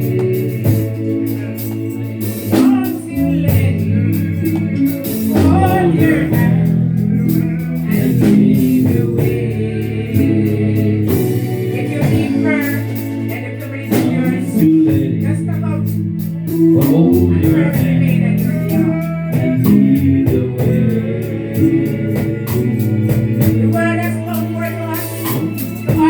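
Gospel music: singing over held bass notes, guitar and a steady drum beat.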